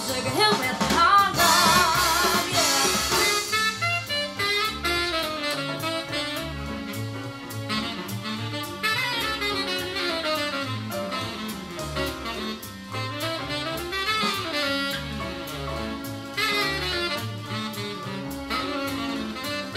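A big-band swing jazz recording played back through home-built two-way loudspeakers, each with a 14 cm woofer in a sealed box and a dome tweeter crossed over at 2 kHz, and heard through a microphone in the room. In the first few seconds a note is held with vibrato; then comes an instrumental stretch of saxophone and brass lines over bass and drums.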